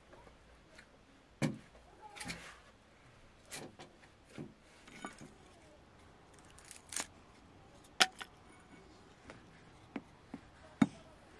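Scattered sharp knocks and clicks of objects being handled, about a dozen at uneven spacing, the loudest about eight seconds in and near the end.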